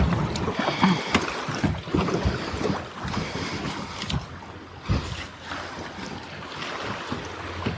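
Wind buffeting the microphone over rushing river water, with scattered knocks and rattles of gear being handled in an aluminum jon boat.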